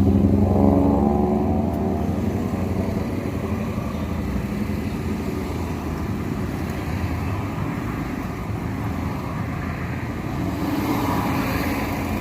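Motor vehicle engines running in slow traffic. One engine's pitch rises and falls in the first couple of seconds, then the engine noise carries on steadily.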